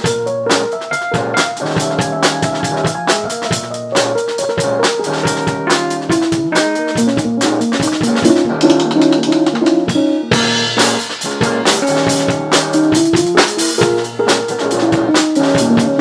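Small jazz combo of saxophone, electric keyboard, drum kit and electric guitar playing an upbeat groove live. The drums keep a steady beat under moving melodic lines, with a cymbal crash about ten seconds in.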